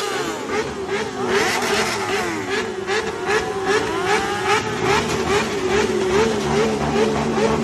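Motorcycle engines being revved over and over, several rising and falling in pitch at once, with a tone that wavers up and down about three times a second.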